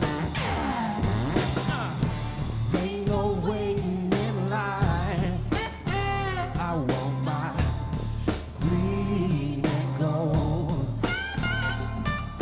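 Live blues-rock band playing an instrumental stretch: electric guitar lead with bent, wavering notes over a steady bass line and drums.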